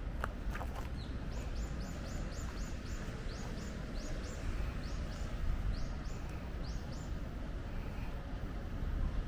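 A small bird giving a run of short, high, rising chirps, about five a second at first, then in shorter broken groups, over a steady low background rumble.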